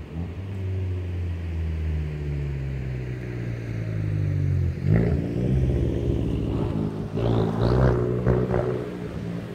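A Fiat 500 Turbo's 1.4-litre turbo four on a Madness aftermarket exhaust: a low steady engine drone, then about halfway through the car accelerates hard past, its note rising and falling quickly, with brief high rising whistles.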